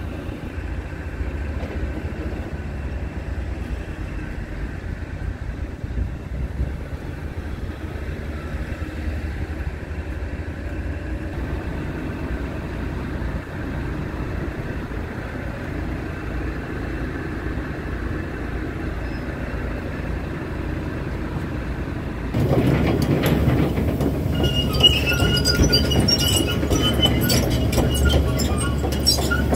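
Scania R450 tractor unit's 13-litre straight-six diesel idling steadily. About 22 seconds in it gets louder and clearer, with a fast ticking clatter, heard up close at the open front grille.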